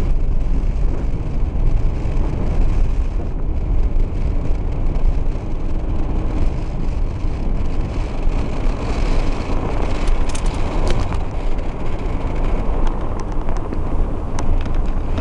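Steady road and wind noise heard from inside a moving car, with a few light clicks about ten seconds in and again near the end.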